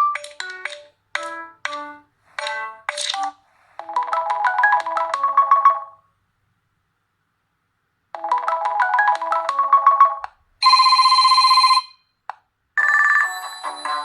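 Nokia G20 smartphone ringtones playing one after another as short synthesized melodies. A quick run of plucked-sounding notes comes first. Then one tune plays twice with a pause of about two seconds between, a steady buzzing ring lasts about a second, and another melody begins near the end.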